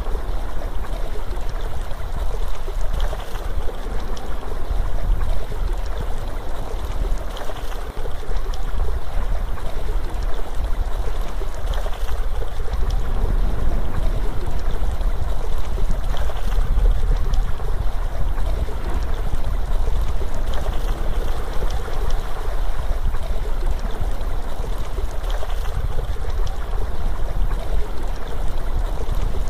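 Steady ambience of rushing, stream-like flowing water with a low rumble underneath.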